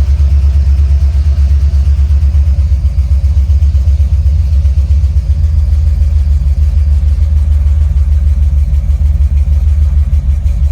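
Car engine idling steadily with a loud, pulsing low rumble, just after starting. It has started now that the 12-volt feed wire to the distributor, which had been left unplugged and caused the no-start, is reconnected.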